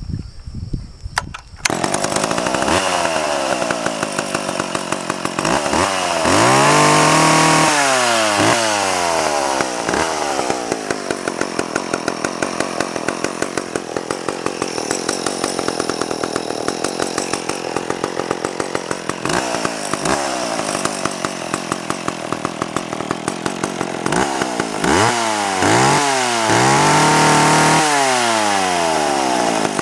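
McCulloch Pro Mac 10-10 two-stroke chainsaw starts up about a second and a half in, then runs with the throttle blipped. It revs up and falls back around six to eight seconds in, again briefly a few times later, and in a series of quick revs near the end.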